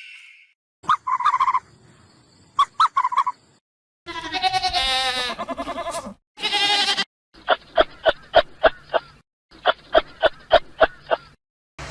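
A run of short animal calls, cut one after another: two brief pairs of high calls, then a long wavering pitched call and a shorter one, then two runs of rapid evenly spaced pulses, about five a second.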